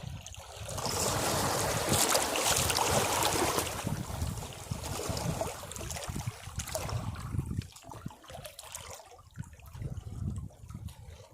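Sea waves breaking on rocks: a rush of surf swells in about half a second in and is loudest over the next few seconds, then falls back to a weaker, uneven wash of water draining off the rocks.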